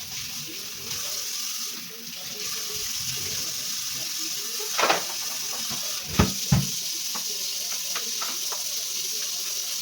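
Tap water running steadily into a kitchen sink, with a few sharp knocks about five and six seconds in, as of something being handled in the sink.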